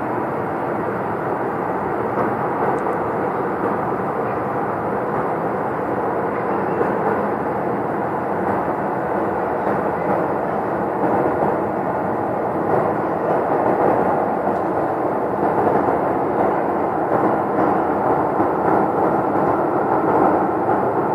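A loud, steady rumbling that seems to come from the sky, growing slightly louder in the second half.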